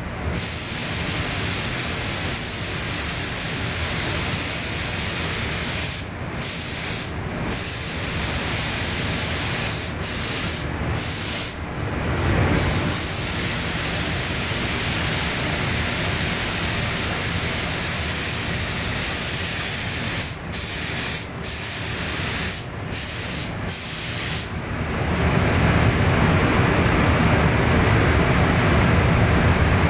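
Gravity-cup compressed-air spray gun spraying paint with a steady hiss, cutting out briefly several times as the trigger is let go. After about 25 seconds the spraying stops and a louder low rumble takes over.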